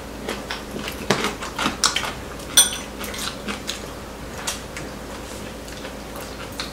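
Chopsticks and spoons clicking and clinking against ceramic bowls and plates during a meal: scattered light taps, with one sharper ringing clink about two and a half seconds in.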